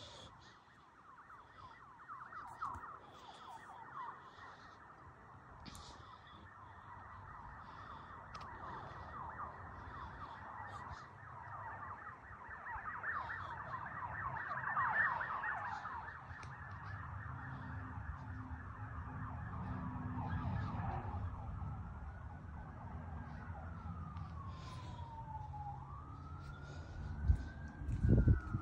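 Sirens of a sheriff's patrol car and an ambulance, heard at a distance and getting closer: a fast yelp most of the time, then a slow rising and falling wail from about two-thirds of the way in. A low vehicle rumble grows underneath, and a few loud low thumps come near the end.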